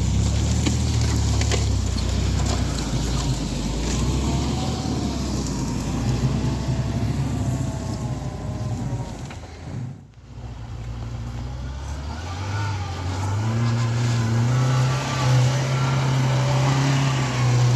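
Off-road 4x4 engine running under load, its pitch wavering with the throttle. About ten seconds in the sound drops out briefly, then an engine note rises and holds steady at higher revs.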